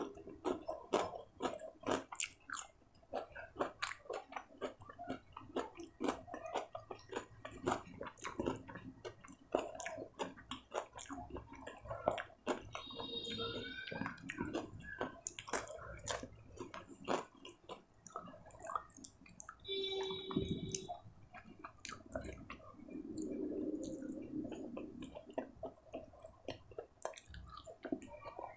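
Close-miked chewing and wet mouth sounds of a person eating flatbread, rice and curry by hand, with many sharp smacks and clicks. There are two brief pitched mouth sounds partway through.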